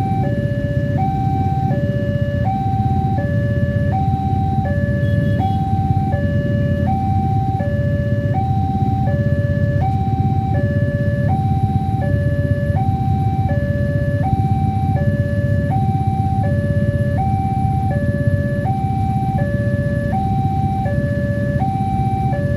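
Railway level-crossing warning alarm sounding continuously, an electronic two-tone signal alternating between a higher and a lower note a little over once a second, over a steady low rumble.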